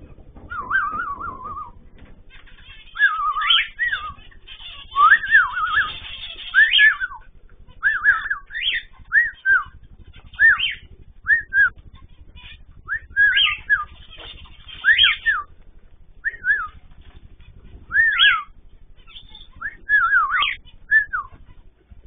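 Cockatiel calling over and over: loud whistled calls that rise and fall, often in quick pairs, every second or two.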